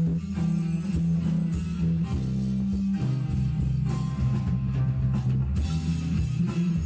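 Live rock band playing an instrumental passage with electric guitar, bass guitar and drum kit.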